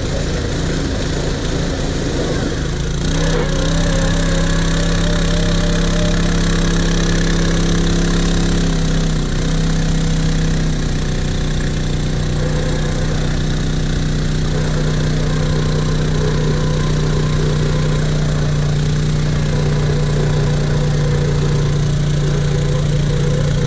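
ATV engine idling steadily, a constant low hum that settles in a few seconds in and holds without revving.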